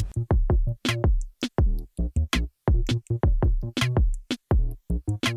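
Electronic music with a drum-machine beat: short, choppy hits with falling bass notes, broken by brief silences.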